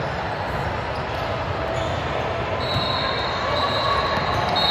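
Steady indistinct crowd and court noise echoing in a gym during a youth team game, with a thin high tone joining about two and a half seconds in.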